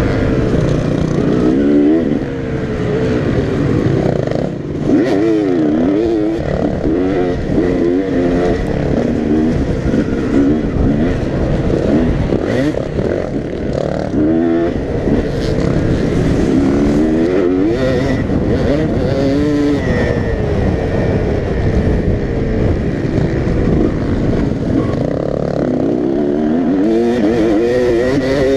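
Dirt bike engine heard from the rider's own bike, revving up and down over and over as it accelerates, shifts and backs off around the track, with occasional knocks from the ride.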